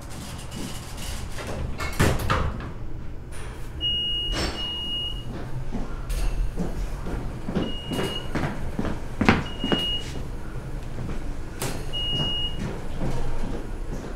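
Irregular knocks and bangs, some sharp and some dull, over a steady low hum, with a few short high beeps in between.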